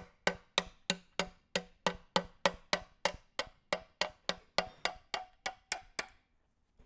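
Steady, evenly spaced sharp ticks, about three a second with silence between them, like a clock ticking; they stop shortly before the end.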